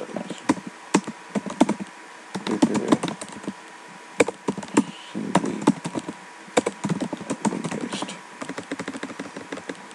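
Computer keyboard typing: irregular runs of keystroke clicks with short pauses between them.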